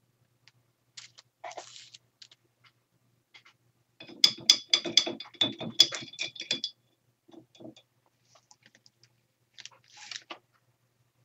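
Crackly rustling of clear plastic sheets being handled and shifted on a paper journal page. About four seconds in comes a dense, rapid clicking clatter lasting some two and a half seconds, the loudest sound here.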